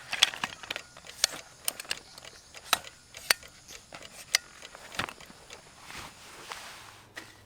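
A string of irregular sharp clicks and knocks, about a dozen, spread unevenly over a faint hiss.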